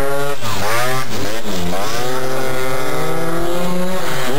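Tuned two-stroke scooter engines revving hard as they accelerate away. The pitch climbs and drops several times, then holds high and steady, and dips near the end.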